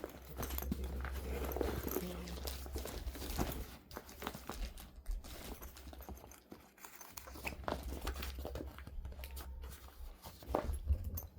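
Rustling and crinkling as a new fabric-and-mesh backpack cat carrier and its packaging are handled, with scattered light clicks and knocks.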